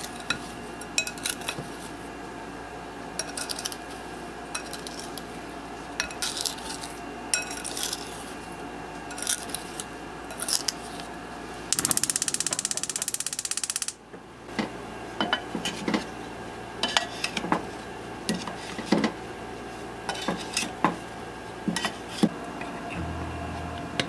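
A wooden spoon clinking and scraping against a glass bowl in many short, irregular knocks as diced peaches are tossed with sugar. About halfway through comes a dense rattling noise lasting about two seconds, followed by more scattered knocks of a utensil against a pot.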